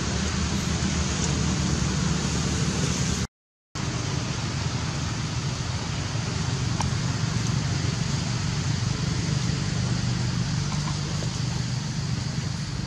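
Steady outdoor background noise: a low rumble under an even hiss, with no clear single event. It cuts out completely for about half a second a little over three seconds in.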